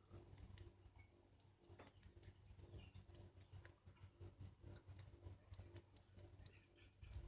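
Near silence: faint, irregular ticks and clicks over a low rumble.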